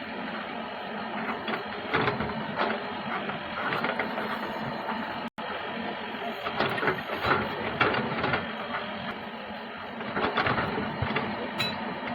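Diesel engines of earthmoving machinery running steadily, with frequent short clanks and rattles. There is a brief break about five seconds in.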